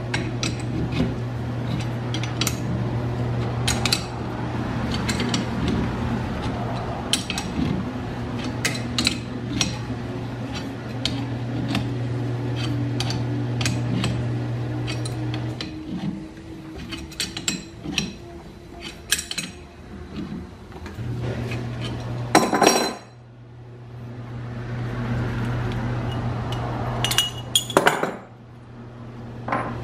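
Metal clinking, tapping and scraping as a two-jaw gear puller is fitted and worked on the drive pulley of an antique Pickering steam governor held in a vise. A few louder metal clanks come near the end, as the pulley comes free and the puller is set down. A steady low hum runs underneath and drops out twice.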